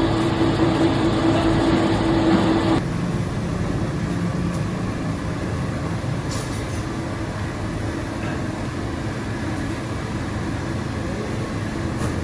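Steady running of factory machinery. A strong humming tone and hiss cut off abruptly about three seconds in, leaving a quieter, steady low hum with a few faint clicks.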